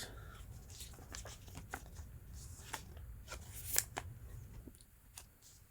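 Faint rustling and light clicks of sleeved Pokémon trading cards being handled and set down on a table, with one louder tap about two-thirds of the way through.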